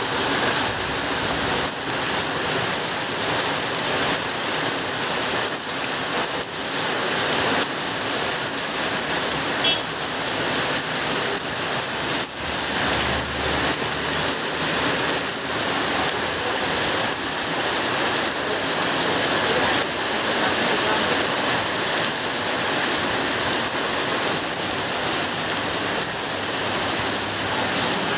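Heavy downpour of rain on a paved road and roadside vegetation: a dense, steady hiss that holds without a break.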